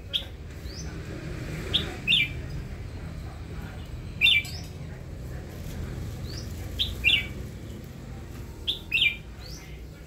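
Red-whiskered bulbul calling: short, bright chirps, mostly in quick pairs, repeated every two to three seconds, over a steady low rumble.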